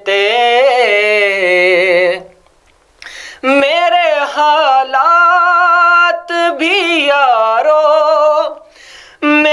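A man singing an Urdu naat solo, drawing out long wavering notes on held vowels. The singing breaks off briefly twice, about two and a half and eight and a half seconds in.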